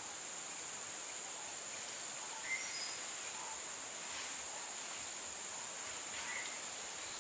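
Steady high-pitched chirring of insects, with a few brief bird chirps about two and a half seconds in and again near the end.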